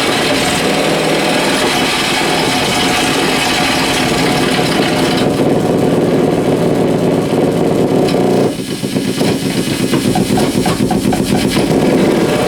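Amplified electrical buzz from compact fluorescent bulbs on dimmer switches, picked up by exposed guitar cables and played without effects: a loud, harsh, dense drone. About five seconds in it loses its upper range, and about eight seconds in it turns abruptly into a rapid pulsing as the dimmers are moved.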